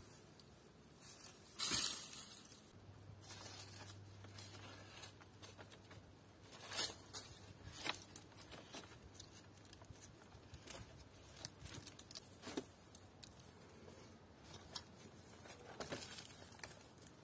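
Irregular rustling and crinkling with scattered sharp clicks and snaps, with one louder rustle about two seconds in.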